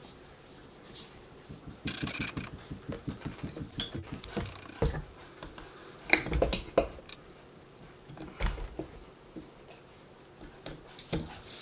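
Heavy Juki DDL-8700 industrial sewing machine head being lowered and tipped into its table on its hinges: a run of quick light knocks and rattles, then a few heavier clunks of metal against the table.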